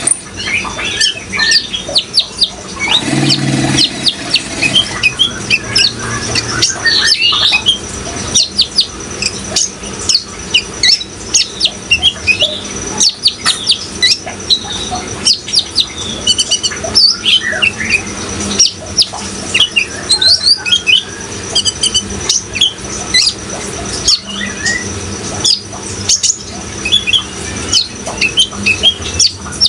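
A kolibri ninja sunbird singing a rapid, continuous stream of short high chirps and twittering trills, over the sound of running water.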